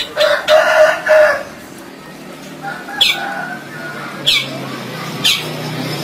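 A loud, harsh rooster-like crow lasting about a second at the start. It is followed by a run of sharp, high notes sweeping downward, about one a second, from a caged long-tailed shrike (cendet). Under the notes is a low steady hum.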